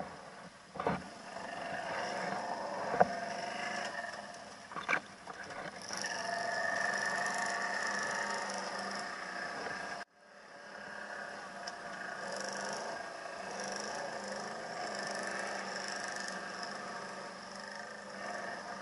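Quad bike (ATV) engine running under way, its note rising and falling a little, with a few sharp knocks in the first five seconds. The sound cuts out abruptly about halfway and then picks up again.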